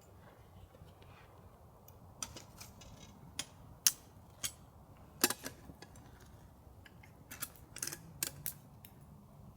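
Campfire wood crackling: irregular sharp pops and snaps, about a dozen, the loudest about four and five seconds in, with a quick cluster near the end.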